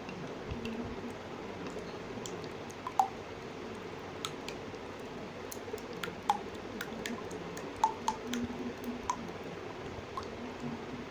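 Eggs and oil being beaten by hand with a spoon in a bowl: a soft wet squishing, with irregular light clicks and taps of the spoon against the bowl.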